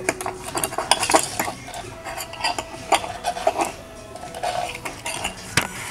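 A fork clinking and scraping against a plate in quick, irregular taps, with occasional table knocks.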